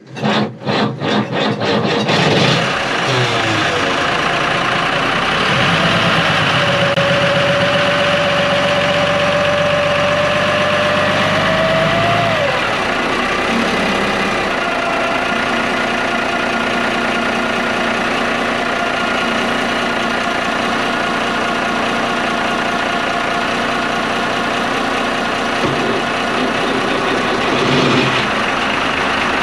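Turbocharged inboard marine diesel engine cranking for about two seconds, catching, then running steadily, heard close up in the engine bay. A steady whine sounds for about six seconds in the first half, and a higher steady whine comes in from about halfway.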